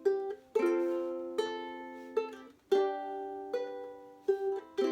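Chords strummed on a small stringed instrument at an even pace, each chord ringing on and fading before the next, as the accompaniment leading into a children's song.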